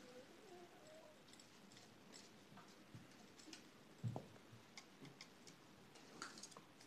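Near silence broken by scattered faint clicks and light taps, with a soft thump about four seconds in: Maine Coon kittens' paws and claws on a wooden chair and floor as they bat at a ribbon.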